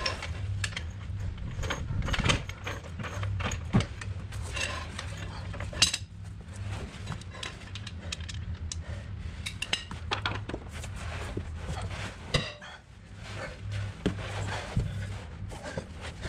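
Socket ratchet clicking in short quick runs as subframe bolts are turned in, with scattered metal clinks of tools. A steady low hum sits underneath.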